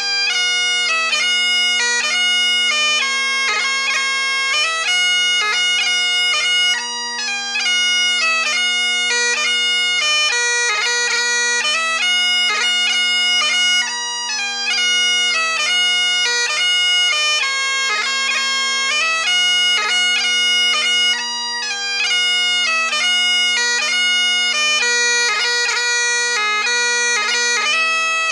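Great Highland bagpipe playing a 6/8 march: the chanter melody, broken by quick grace notes, runs over the steady hum of the drones.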